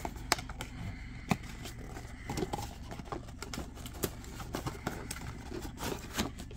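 Cardboard phone box being closed and handled: the inner box slid into its sleeve, with faint scraping and a few sharp taps.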